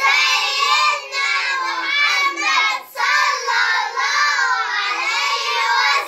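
A group of young children singing together in Arabic, in phrases broken by short pauses about a second and three seconds in.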